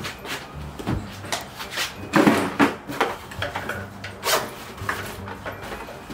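Hurried rummaging: rustling cloth and a fabric bag being handled, with scattered knocks and scrapes against wooden furniture, the loudest cluster about two seconds in.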